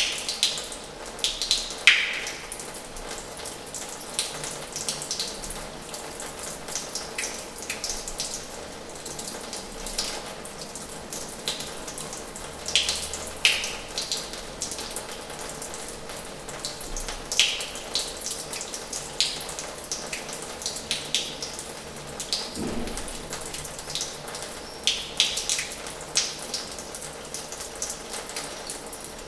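Water running from the tap of an old washhouse basin: a steady splashing flow with irregular, sharper splashes and drips standing out every second or so.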